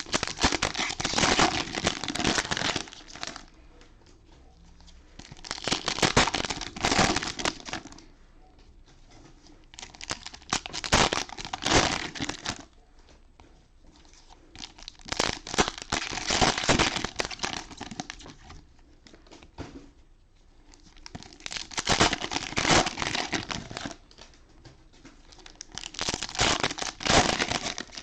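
Cellophane wrappers of trading-card cello packs crinkling as cards are pulled out and the wrappers balled up and discarded, in about six separate bursts a few seconds apart with quiet gaps between.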